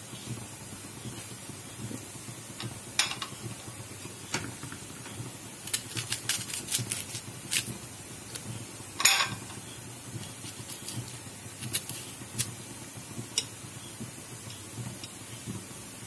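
Knife cutting tomato and onion held in the hand over an aluminium pot, with scattered soft clicks and taps as the blade cuts and pieces drop in, and one louder knock about nine seconds in. A steady low hum runs underneath.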